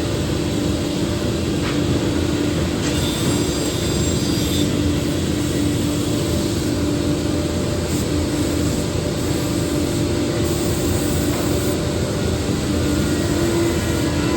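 Four-head 5-axis CNC wood router running: a steady machine noise with a constant drone from the spinning spindles.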